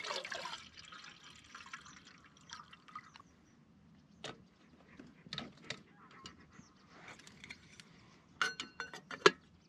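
Metal camp cookware being handled: liquid sloshing and dripping with scattered light clicks, then a quick run of ringing metal clinks about eight and a half seconds in, the loudest a sharp clink just before the end.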